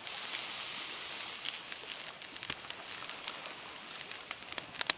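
Frying pan sizzling over a campfire: a loud hiss that starts suddenly and dies down over about two seconds, with scattered crackles and pops from the fire.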